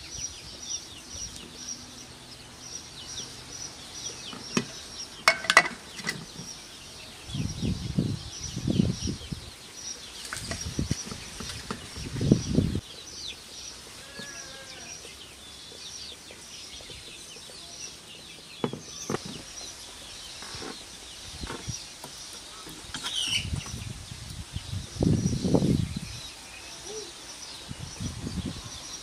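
Small birds chirping steadily in the background, with a chicken's short call about halfway through. Several low thumps and rustles stand out above it, the loudest near the end.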